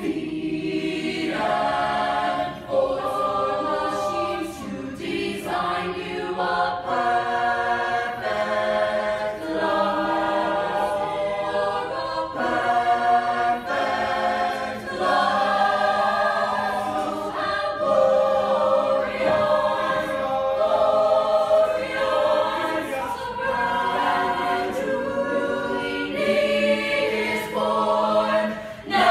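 Mixed-voice high school show choir singing in harmony, moving through held chords that change every second or two.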